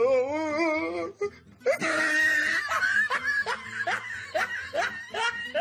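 A person laughing: a wavering giggle for about the first second, then a breathy run of short laughs, a few a second.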